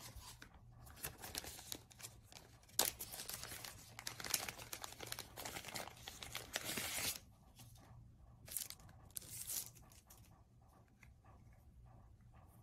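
Thin frosted plastic sleeve crinkling and rustling as hands open it and draw out a pair of sunglasses. The crinkling is heaviest for several seconds in the first half, then comes in two short bursts and dies away. A faint low hum runs underneath.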